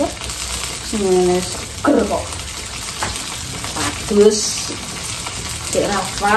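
Chilies frying in oil in a wok, a steady sizzle, with a few short bits of a woman's voice over it.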